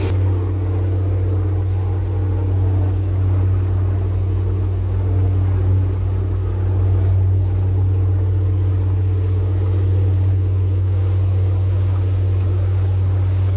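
Passenger speedboat's engines running at a steady low cruising drone, with the rush of its churning wake.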